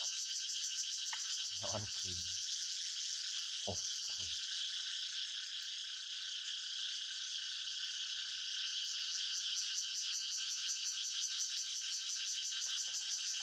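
Dense, steady chorus of small calling animals, high-pitched with a fast pulsing texture. A few brief, low voice-like sounds come in the first few seconds.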